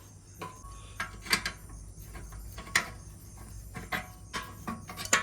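A spanner tightening a bolt on a sewing machine: a few irregular sharp metal clicks and knocks, the loudest near the middle.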